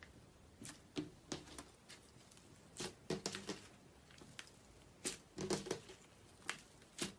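Hands squishing and poking slime, giving irregular wet clicks and little sticky pops.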